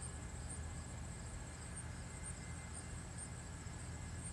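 Faint outdoor background: a low, distant engine rumble from a tractor pull, with a high insect chirp repeating steadily about twice a second.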